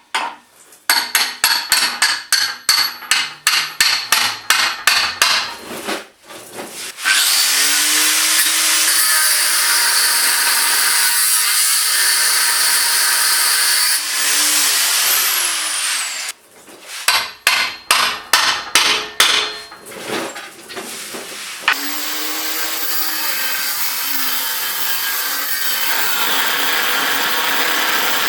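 Hammer blows on steel, about three a second, twice interrupted by a power grinder running and cutting into steel chassis rail, its motor pitch dipping as it bites. The grinder starts about seven seconds in, stops about halfway, and starts again for the last third.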